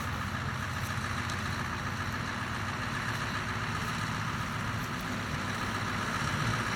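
Scania truck's diesel engine running steadily at low revs as the heavy truck and trailer crawl slowly forward.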